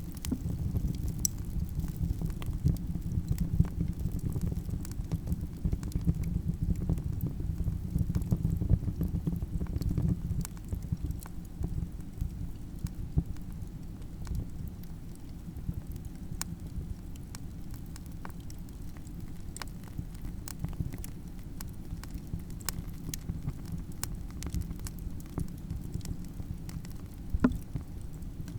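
Campfire burning with a low, steady roar and irregular sharp crackles and pops from the wood, one louder pop near the end. The roar is stronger for the first ten seconds or so, then settles lower.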